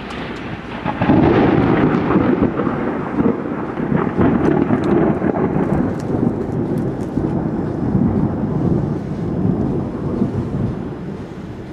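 Thunder: a long rolling rumble from a nearby lightning strike that swells about a second in and slowly dies away.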